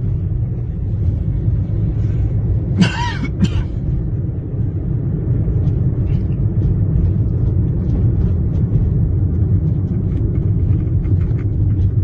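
A car driving along a road, heard from inside: a steady low rumble of engine and road noise. About three seconds in, two brief sharp sounds stand out above it.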